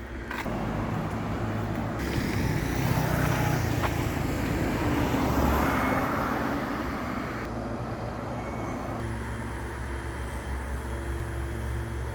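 Car engine running steadily with road and tyre noise while driving. The noise grows louder for a few seconds in the middle, then settles back to a steady hum.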